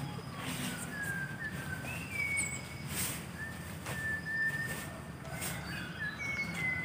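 Pet otter whining: a string of thin, high whistled squeaks, each about half a second and each at a slightly different pitch, with a few short rustles of a plastic raincoat being handled in between.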